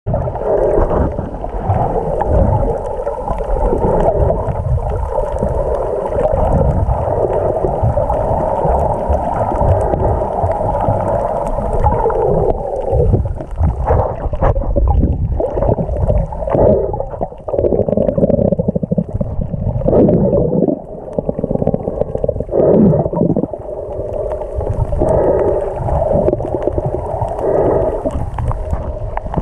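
Muffled underwater noise picked up through a GoPro's waterproof housing: water gurgling and sloshing against the case over a low rumble, steady at first and then coming in uneven surges through the second half.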